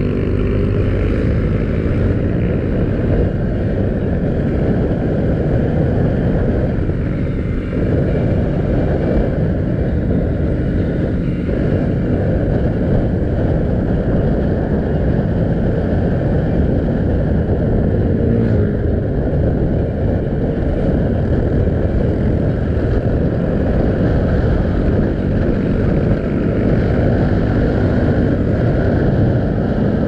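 Bajaj Pulsar 200NS single-cylinder engine running at road speed under steady wind rush over the microphone, with the engine pitch shifting near the start.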